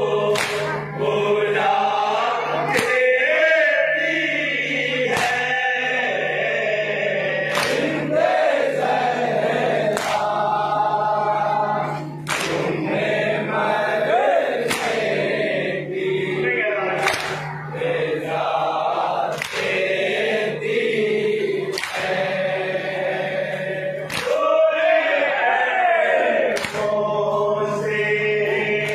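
Men chanting a nauha (Shia lament) in chorus, with unison hand strikes on the chest (matam) landing about every two and a half seconds.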